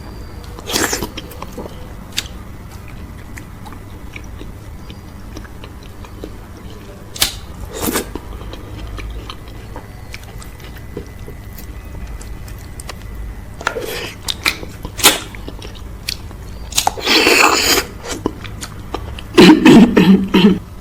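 Close-miked chewing and biting of okra soup with cow foot and fufu, in scattered short bursts with pauses between them, growing longer and louder near the end.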